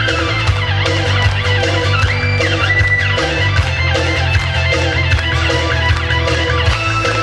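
Live band playing an instrumental passage of a 7080-style Korean folk song: acoustic guitars over a steady bass line, with hand drums keeping an even beat and no singing.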